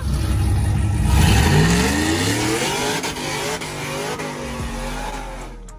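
Lifted pickup truck doing a burnout: about a second in the engine revs up hard and the rear tires spin and squeal on the pavement. The revs hold high, then ease off near the end.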